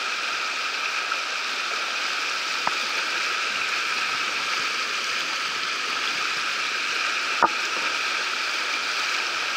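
Fast white-water river rapids rushing steadily. Two short clicks break through, a faint one early and a sharper one about three quarters of the way in.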